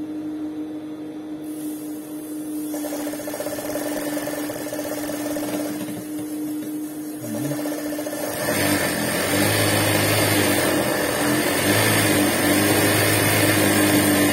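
Professional 8700H industrial straight-stitch sewing machine running with no fabric under the foot, with a steady motor hum. About eight and a half seconds in it speeds up and runs louder.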